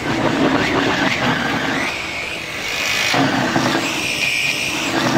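Electric drive and shooter motors of a FIRST robotics competition robot whining as it fires a stream of balls; the whine glides up and down, then holds a steadier high pitch in the second half.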